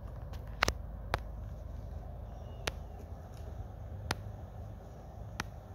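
A steady low rumble with five sharp clicks spread through it.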